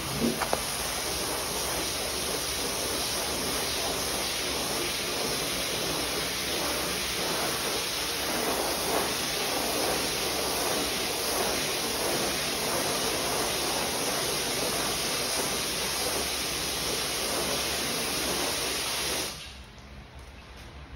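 Water spraying from a hose wand onto a soaked area rug: a steady hiss and splash that cuts off sharply near the end. A couple of brief knocks just at the start.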